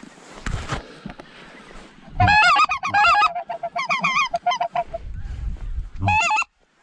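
Mouth-blown goose calls honking loudly and close: a run of sharp honks that break in pitch starting about two seconds in, then a lower, quicker series, and a short final burst near the end.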